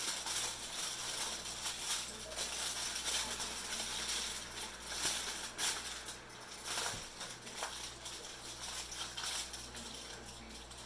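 Aluminium foil crinkling and rustling in irregular crackles as it is folded and pinched together into a packet.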